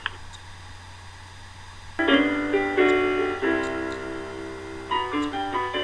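Solo piano from an old, dull-sounding recording. After a pause of about two seconds with only a low hum, chords are struck and held, a new one roughly every half second to second.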